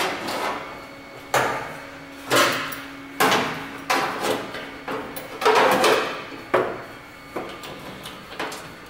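Sheet-metal panels knocking and clanking as they are set and clamped into a car's bare steel rear floor: about eight separate metallic knocks, each ringing briefly.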